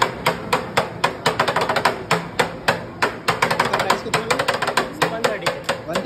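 Metal spatula strikes clacking on a steel plate in rapid, uneven knocks, about five a second, with voices underneath.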